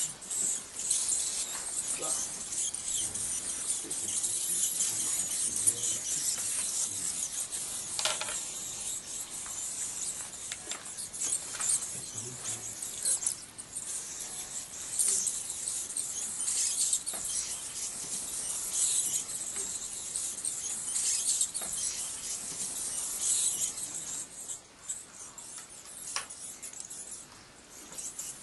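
A roosting colony of greater mouse-eared bats calling: many high-pitched squeaks and twitters at once, making a continuous chatter that swells and fades, with a few sharp clicks.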